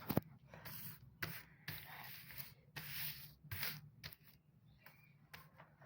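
Faint scraping and rustling of papers being shuffled by hand, in short irregular strokes.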